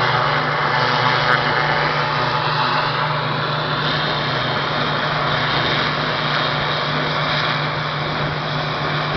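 BAe Jetstream 41 twin-turboprop airliner taxiing past, its engines running with a steady hum under a loud whine and hiss. A high tone in the whine slides down in pitch about two to three seconds in as the aircraft moves away.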